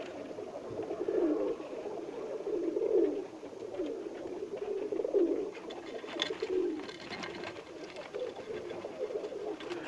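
Birmingham roller pigeons cooing on and off, low coos from more than one bird, with a few brief clicks about six seconds in.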